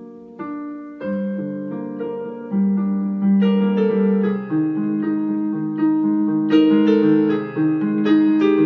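Solo piano playing a slow melody over sustained chords, the notes swelling louder after the first couple of seconds.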